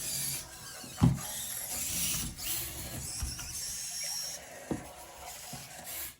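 Robosen Elite Optimus Prime robot's servo motors whirring and shifting pitch as it transforms on voice command. Small clicks and knocks come from its moving parts, the sharpest about a second in.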